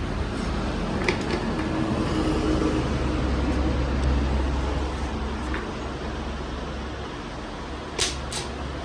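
Steady road-vehicle noise with a low rumble. There is a sharp click about a second in and two more in quick succession near the end.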